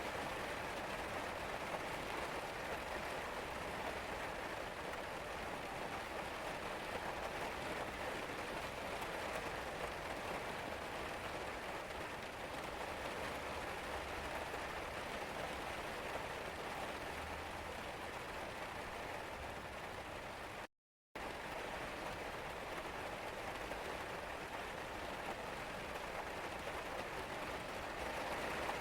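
Steady rain falling as an even hiss. About two-thirds of the way through it cuts out to silence for a split second, then resumes.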